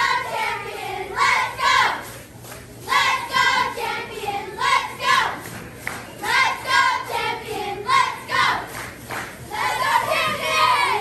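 A group of young girl cheerleaders chanting a cheer together, in rhythmic shouted phrases with short breaks between them.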